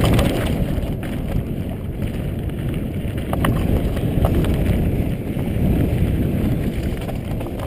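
Mountain bike ridden fast down a rocky dirt singletrack: wind buffeting the action camera's microphone over the crunch and rattle of tyres on dirt and loose stones, with a few sharp clicks.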